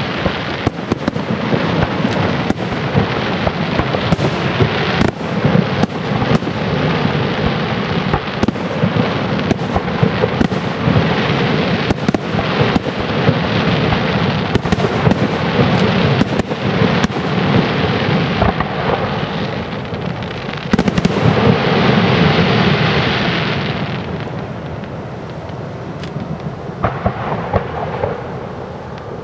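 Aerial fireworks display: ball shells and comets bursting in quick succession over a steady crackling rumble, a dense barrage that is loudest about two-thirds of the way through, then eases off before new bangs near the end.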